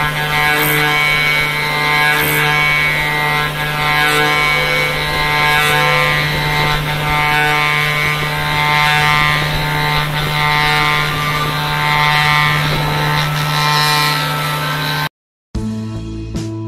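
CNC milling machine's carbide end mill cutting hardened SKD61 tool steel (HRC60) at 4,500 rpm. It makes a steady, loud whine of several tones that swells slightly every one and a half to two seconds. About fifteen seconds in it cuts off abruptly and acoustic guitar music begins.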